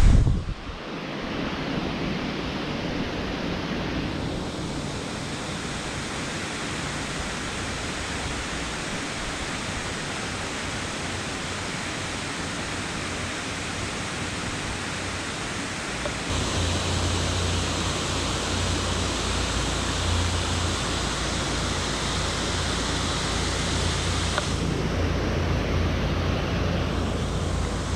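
Steady rush of river water flowing below a dam, growing louder and brighter about two-thirds of the way through.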